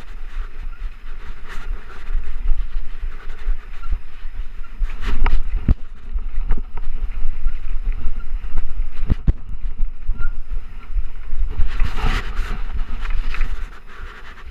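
Trek Rumblefish Pro full-suspension mountain bike ridden fast down a dirt singletrack: a steady low rumble of tyres and wind buffeting the chest-mounted microphone, with sharp knocks and rattles as the bike hits bumps. The noise drops as the bike slows near the end.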